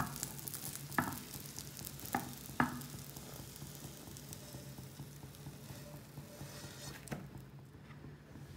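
Hot oil sizzling faintly in a nonstick frying pan under an egg omelette, with a few light knocks in the first three seconds as the pan's rim meets the plate the omelette is slid onto for turning. The sizzle dies down about seven seconds in.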